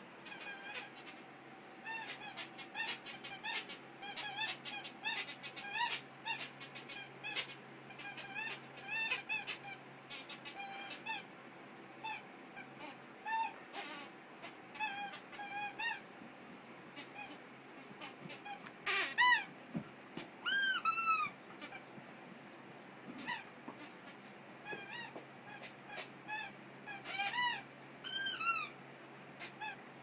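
A rubber squeaky dog toy being chewed by a Labradoodle puppy, squeaking in quick runs of short squeaks at irregular intervals. The loudest run comes about two-thirds of the way through.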